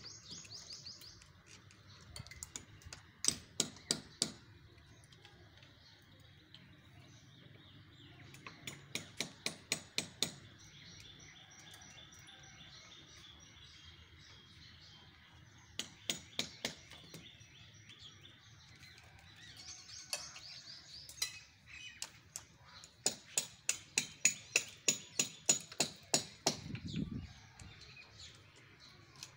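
Runs of quick hammer strikes, about four a second, each run lasting a second or two with pauses between. Birds chirp in the gaps.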